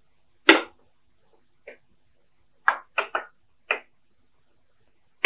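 Steel tumbler knocking down on boiled chicken pieces against a ceramic plate, pressing them to shred the meat: a loud knock about half a second in, a faint one, then a quick run of four knocks.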